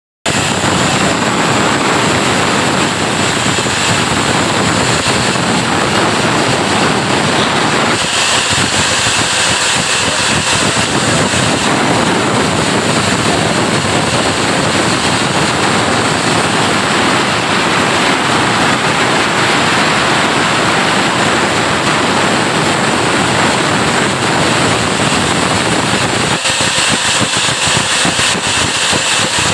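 Large sawmill band saw running loudly and cutting through a thick log slab as it is pushed along the table, a dense, steady mechanical din. The lower rumble drops away for a few seconds about eight seconds in and again near the end.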